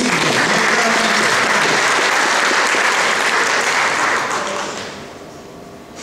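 Audience applauding, dying away about four to five seconds in.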